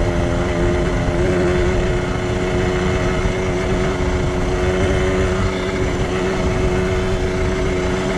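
Yamaha DT 125 X's two-stroke single-cylinder engine running at a steady, held pitch as the motorcycle is ridden.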